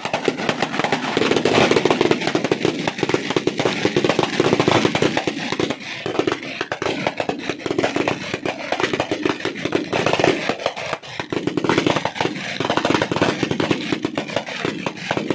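Firecrackers going off in a dense, rapid, unbroken run of sharp bangs, like a long string of crackers burning.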